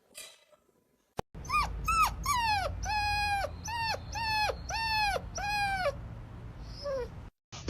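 A dog giving a quick run of about eight high-pitched whining cries, each dropping in pitch, over a low rumble.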